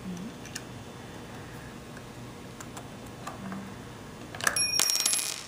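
Light metallic clicks and taps as a dial-gauge torsiometer is unclamped and handled on a steel torsion specimen, then near the end a louder bell-like metallic ring lasting under a second that stops suddenly.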